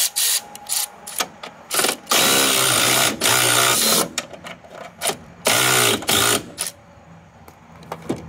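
Tool work tightening a pump motor's belt adjustment: a run of short sharp clicks, then two longer mechanical whirring runs, the first about two seconds long.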